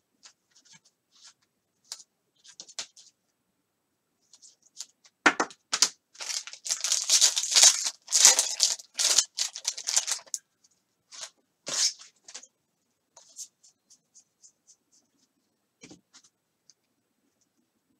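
Trading-card pack wrapper being torn open and crinkled by hand, loudest from about five to ten seconds in, with a sharp snap just after. Small clicks and rustles of the cards being handled are scattered around it.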